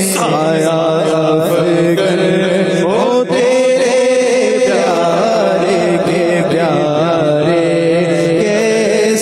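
A devotional Urdu naat chanted in a slow, drawn-out melody, the voice wavering over a steady sustained hum.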